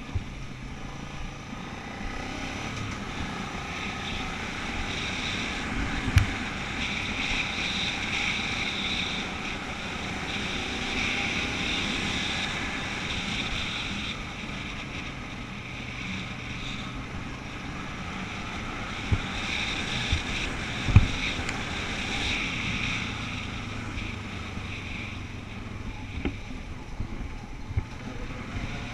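A vehicle driving along a gravel dirt track: a steady low running hum with wind noise on the microphone and a handful of sharp knocks from bumps in the track.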